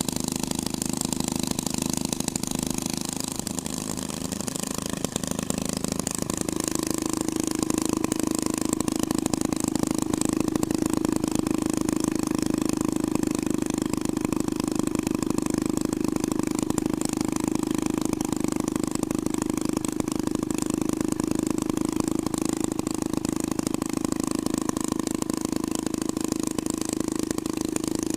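Twin-engine hot rod idling steadily. Its note wavers briefly about four seconds in, then settles slightly louder and even.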